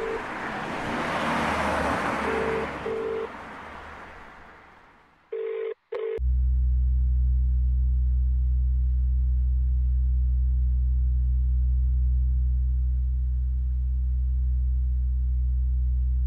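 Mobile phone call tones: a few short beeps over a hiss, then two clearer beeps about five and a half seconds in. After that the sound switches suddenly to a steady low drone.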